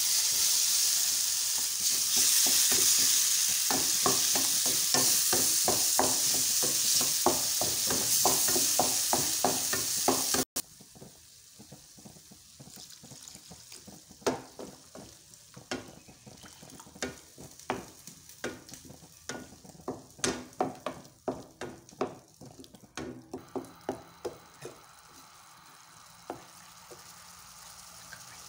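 Diced tomatoes sizzling loudly in a frying pan while a wooden spoon stirs them, knocking and scraping against the pan several times a second. About ten seconds in the sizzle cuts off suddenly, leaving quieter, irregular clicks of the spoon stirring the sauce.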